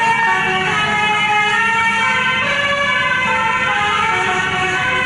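Bus's multi-trumpet telolet horn playing a melody, several tones sounding together and stepping from note to note.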